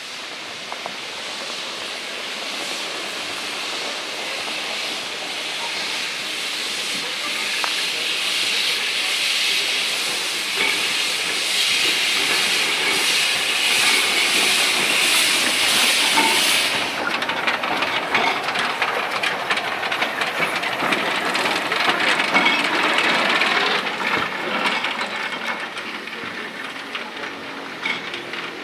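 Saxon IV K narrow-gauge steam locomotive moving slowly past with its cylinder drain cocks open, a steady loud hiss of venting steam that grows as it nears and cuts off suddenly about two-thirds of the way through. After that its wheels click over the rail joints and points.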